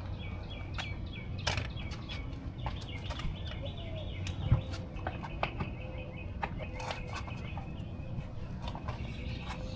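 Small birds chirping in quick repeated phrases in the background, with scattered sharp clicks and one louder knock about four and a half seconds in.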